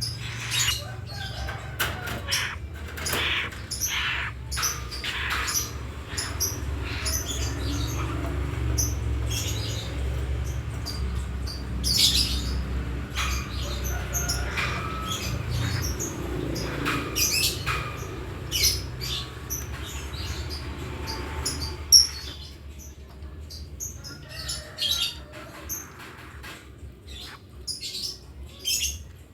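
Nightjar being fed: wing flapping and fluttering with short clicks and chirps scattered throughout, over a low steady hum that drops away about two-thirds of the way in, with one sharp click at that point.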